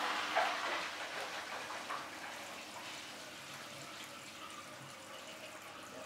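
Water running and swishing inside a Siemens iSensoric WM12N2K7GR front-loading washing machine's drum during a wash, a steady hiss that slowly fades, with a light knock just after the start.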